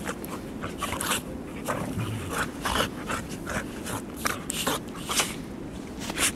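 Two dogs play-wrestling in snow: a string of short, irregular huffs and scuffles, several a second.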